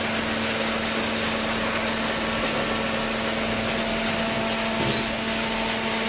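Automatic horizontal hydraulic paper baler running: a steady machine din with a constant hum from its hydraulic power unit.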